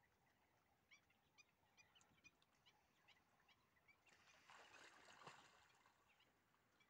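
Faint, distant water sounds of crocodiles feeding on a carcass: a soft wash of splashing about four seconds in, as they churn and roll it in the water. Before it, a bird chirps repeatedly in short, high calls.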